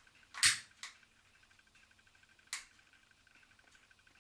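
Long-reach piezo lighter clicking three times as it sparks to light the burner of a tin pop-pop boat. The first snap, about half a second in, is the loudest; a weaker one follows at once and another comes about two seconds later.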